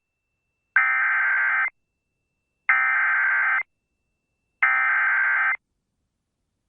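Emergency Alert System SAME header: three identical bursts of digital data tones, each about a second long with about a second between them, marking the start of an emergency alert broadcast over the radio.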